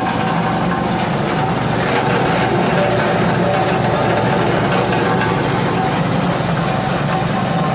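Coconut-husk grinding machine for cocopeat and cocofiber running steadily with a loud, even machine noise and hum that starts abruptly.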